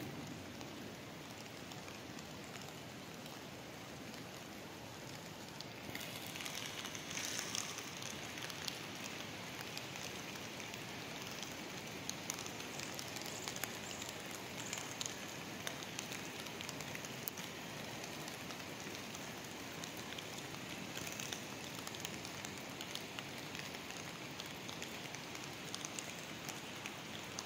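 Rain falling, a steady hiss with scattered ticks of drops, growing brighter with more ticks about six seconds in.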